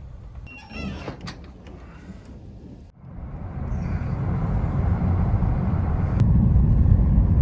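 A vehicle on the move: a steady low rumble of engine and road noise that comes in about three seconds in and grows louder, after a quieter start with a few faint high chirps.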